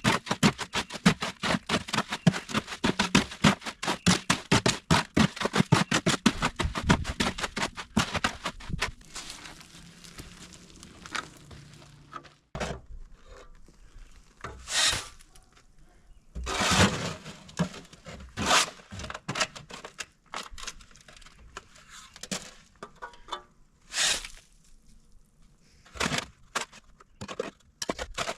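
Hand digging in soil and rock: a fast run of scraping, crunching tool strokes, about four or five a second. About nine seconds in it breaks up into scattered single scrapes.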